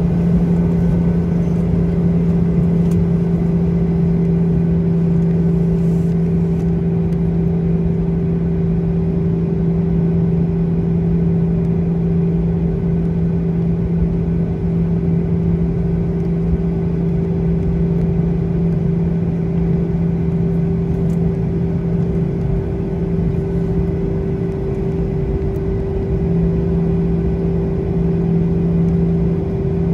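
Cabin noise of a Boeing 737-800 heard from a seat over the wing, its CFM56-7B engines at low taxi power: a steady hum with two low tones held level, no spool-up.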